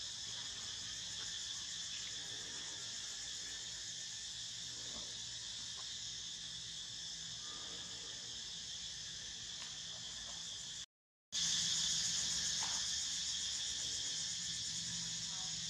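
Steady chorus of insects, a high, unbroken shrill trill. It cuts out for a moment about eleven seconds in and comes back a little louder.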